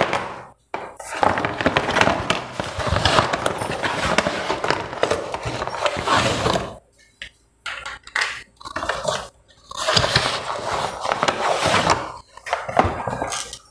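Rustling of a ring light's packaging being handled, with many small clicks and knocks of the parts, in two long bursts with a pause of a few seconds between.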